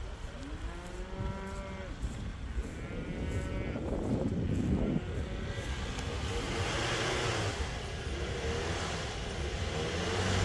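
Cattle mooing, two long rising-and-falling calls in the first few seconds, over a vehicle engine running; a rushing noise builds in the second half.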